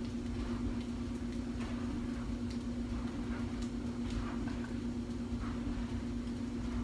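A steady low electrical hum on one pitch, with faint scattered clicks and knocks over it.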